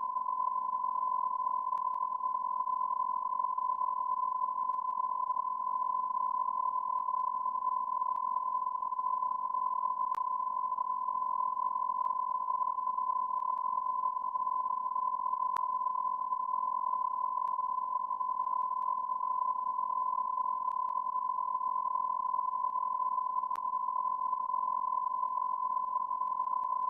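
A steady electronic beep tone at about 1 kHz, held unbroken at an even level, over a faint hiss.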